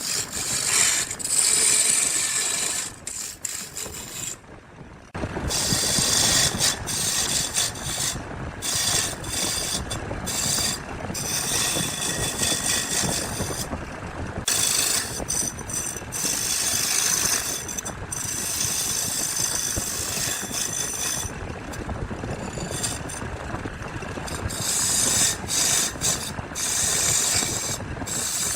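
A woodworking tool working on wood, making a continuous noise that dips briefly about four seconds in and then runs on unevenly.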